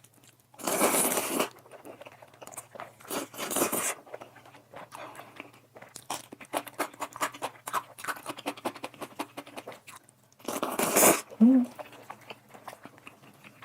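Close-up mouth sounds of someone eating soft instant fire noodles: three long slurps, about half a second in, near four seconds and near eleven seconds, with a run of wet chewing clicks between them.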